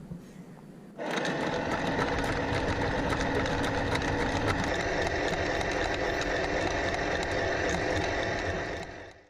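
Anchor windlass hauling in the anchor chain: a steady motor whine with rapid clicking of the chain coming in, starting about a second in and fading out near the end.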